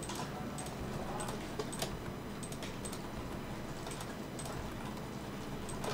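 Faint, irregular clicks of a computer mouse and keyboard, a few each second, over a steady low background hum.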